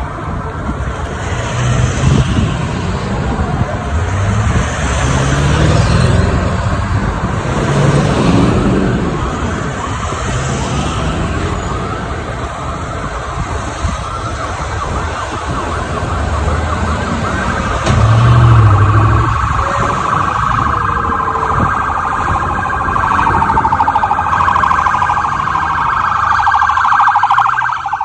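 Sirens of a motorcade escort, wailing and warbling over the running engines of passing vehicles. The sirens grow louder and denser about two-thirds of the way in.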